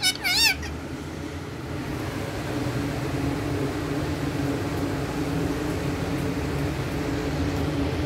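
An Indian ringneck parakeet gives a short warbling whistle, sweeping up and down in pitch, in the first half-second. A steady low hum follows.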